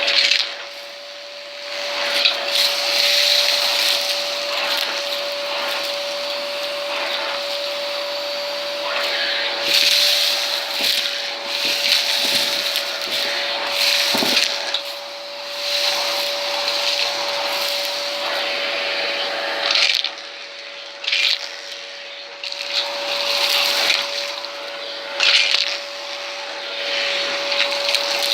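Small vacuum cleaner running, with a steady motor whine under a hiss of suction that surges and drops several times as it works over a mess.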